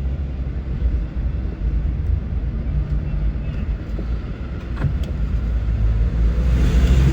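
Car engine and road noise heard from inside the cabin by a dashcam: a steady low rumble.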